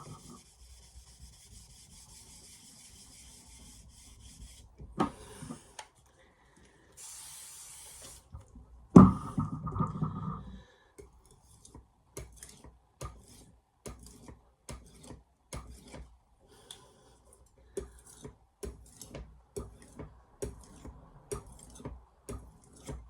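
Diamond sharpening plate being cleaned off, with a steady hiss, a couple of sprays and a loud rubbing stretch, then a stainless steel knife blade being stroked across the plate in short scraping strokes about two a second, with one brief pause.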